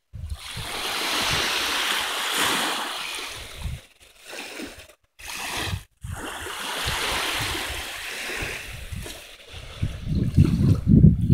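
Small Lake Michigan waves washing onto a sandy beach, each wash swelling and fading. The sound cuts out abruptly for a moment a few times around the middle, and near the end a strong low rumble of wind buffets the microphone.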